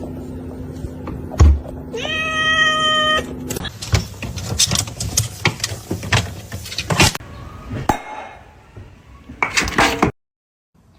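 A cat meowing: one long, steady call about two seconds in, followed by a run of knocks and rustles.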